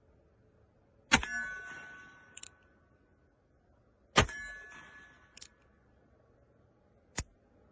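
Two sharp metallic clangs about three seconds apart, each ringing and fading over about a second, each followed by a lighter click, and a short click near the end.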